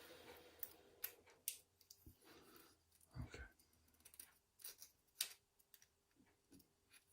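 Faint, scattered small metal clicks from handling the parts of a Yale euro cylinder lock and the tools used on its pins, with a soft knock about three seconds in.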